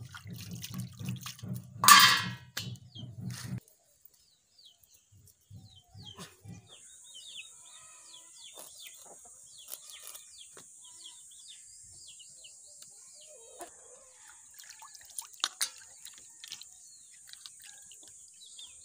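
A steel plate clanks once, ringing briefly, about two seconds in. Later, a knife scrapes scales off and cuts a rohu fish in short scratchy strokes, with a few sharp clicks near the end. Small birds chirp over a steady high hiss.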